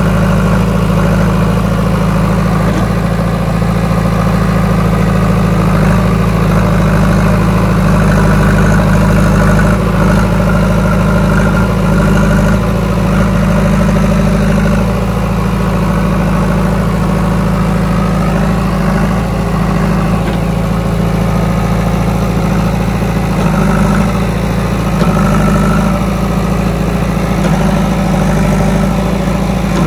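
JCB 3DX Eco backhoe loader's diesel engine running steadily with a deep drone, working as the machine, stuck badly in mud, shoves itself free with its arms and loader bucket.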